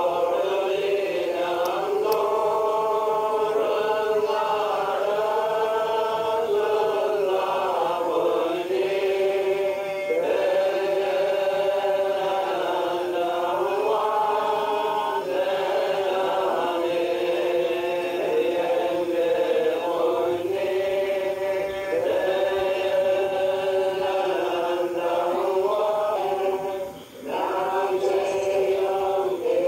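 A group of voices singing a slow liturgical chant together, in long held notes that move in phrases of a few seconds, with a brief pause about 27 seconds in.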